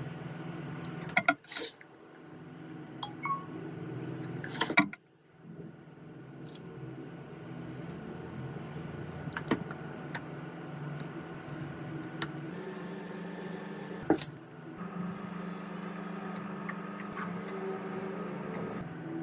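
Steady background hum with a few sharp clicks and smaller taps of small metal tools and parts being handled inside an opened iPhone.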